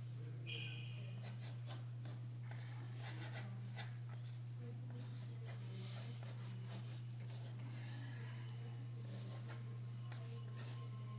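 Pencil sketching on drawing paper: irregular short scratching and shading strokes, over a steady low hum.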